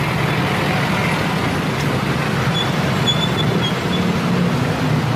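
Busy street traffic: motorcycle and car engines running steadily as vehicles pass close by.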